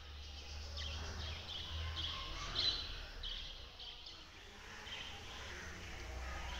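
Small birds chirping in short, high calls, about two a second, thinning out and fainter after the first few seconds, over a steady low rumble.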